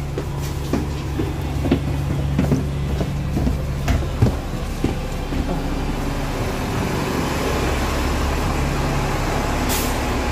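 Double-decker bus engine idling with a steady low hum, with scattered footsteps and knocks as people walk down through the bus and off it. A short burst of air hiss comes near the end.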